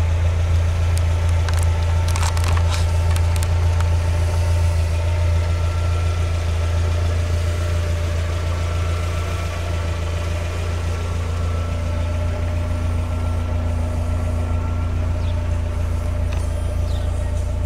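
Mazda MX-5's 1.8-litre four-cylinder engine idling steadily, with a few light clicks in the first few seconds.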